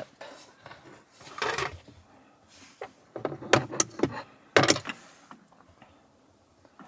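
A few hard plastic knocks and scrapes: a car's interior trim cover being handled and fitted back into place.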